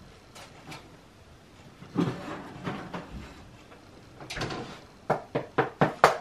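Kitchen handling sounds: a few scattered knocks and bumps, then a quick run of five sharp knocks near the end.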